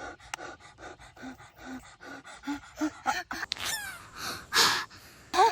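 Quick, rhythmic breathy gasps from a person, about four a second, followed by a short falling squeak and a couple of louder breathy puffs.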